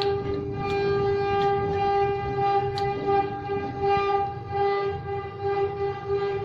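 Large sawmill saw running, a steady high whine with a rumble beneath it and a few sharp knocks in the first three seconds.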